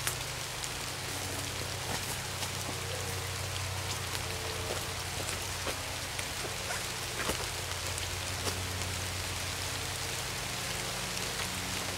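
Steady rain falling on leaves and brush: an even hiss with scattered drop ticks.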